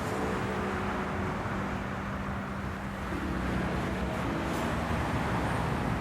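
City street traffic: a steady low hum of vehicle engines over even road noise.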